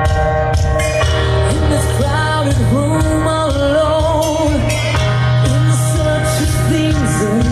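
Live rock band playing loud music, with a bending, gliding melodic lead line over a steady low bass.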